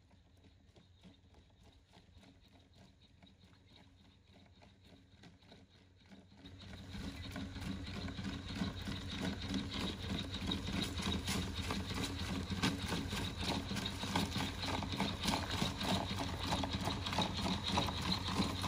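Vision 60 quadruped robot walking: its feet patter quickly on leaf litter and gravel over a steady electric motor hum. Faint at first, then much louder from about six seconds in.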